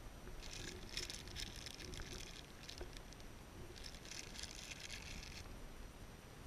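A small plastic bag of soft-plastic fishing lures crinkling as it is handled, in two spells of a second or two each, over a faint low rumble.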